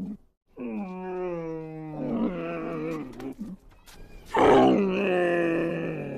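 Camel groaning and bellowing in three long, pitched calls, the loudest one starting about four seconds in.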